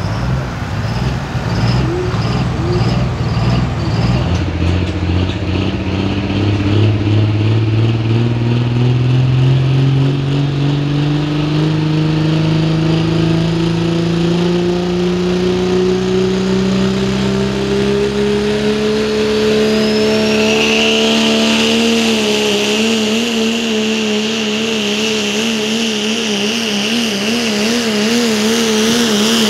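Dodge Ram pulling truck's turbocharged Cummins inline-six diesel under load on the sled. Its pitch climbs slowly and steadily, a turbo whine rises and then holds, and near the end the engine note wavers quickly up and down.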